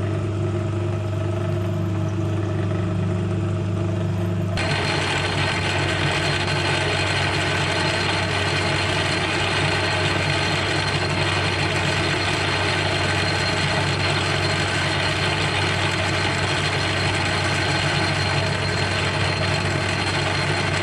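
Small workshop machine tool running steadily with a low hum; about four and a half seconds in, the sound changes abruptly to a louder, noisier machining sound with a thin, steady high whine.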